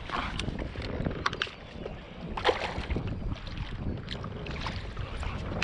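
Wind noise on the microphone and water lapping against a drifting boat, with scattered sharp clicks and knocks and a louder knock about halfway through.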